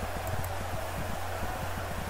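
Recording's background noise: a steady low electrical hum with dense, irregular low crackling pops, and two faint high clicks near the start.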